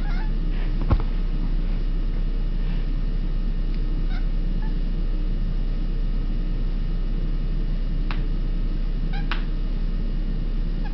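Tabby cat making a few short, high chirping calls, the odd noises its owner likens to a monkey's, clearest near the start and again near the end. A single sharp click about a second in, over a steady low hum.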